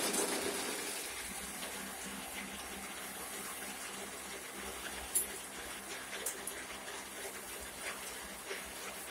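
A straw chaff cutter running, with a faint steady motor hum under a rushing hiss as straw is fed in and chopped straw blows out of its chute. It grows quieter over the first second, and there is one sharp knock about five seconds in.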